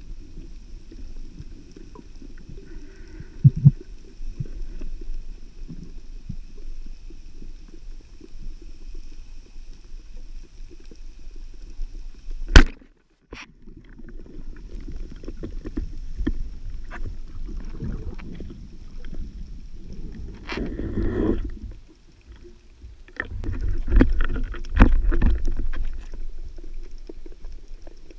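Underwater sound heard through a GoPro housing: a low steady water rumble, broken about halfway through by a single sharp crack as a Dapiran Saber 90 band speargun fires at a sea bass. Bursts of churning water follow near the end.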